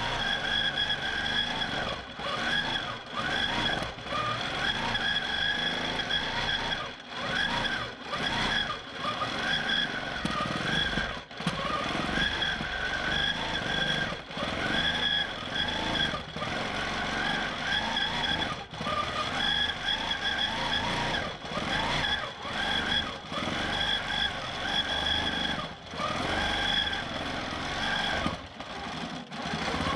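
Q'nique 19 longarm quilting machine stitching in stitch-regulated mode: the motor and needle run with a steady high whine, the motor pitch rising and falling as the machine speeds up and slows down, with many brief pauses.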